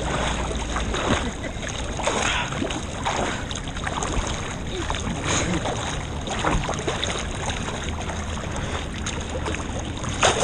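River water rushing and splashing, with irregular splashes throughout.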